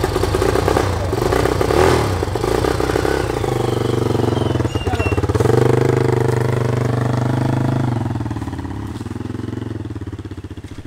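Small motorcycle engine, freshly started, running with uneven revs for the first few seconds, then settling to a steady pull as the bike rides off, growing quieter near the end.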